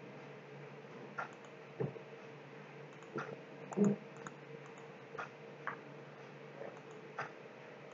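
Computer mouse clicking, about ten short clicks at irregular intervals, over a faint steady hum.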